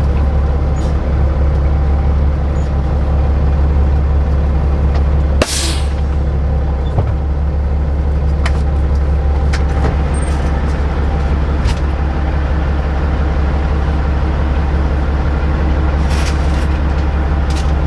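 Semi truck's diesel engine running steadily with a deep drone, and a short air-brake hiss about five and a half seconds in.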